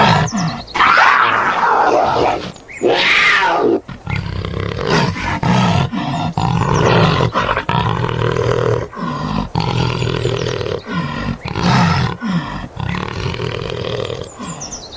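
Panther (big cat) roaring and growling in a series of calls, with short breaks between them.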